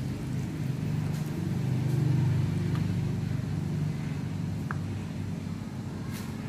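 A steady low motor drone, swelling slightly about two seconds in, with a few faint ticks over it.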